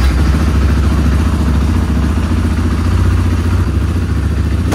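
KTM EXC supermoto's single-cylinder engine idling steadily moments after starting, freshly filled with new oil after an oil change. It is a loud, even, low, pulsing idle.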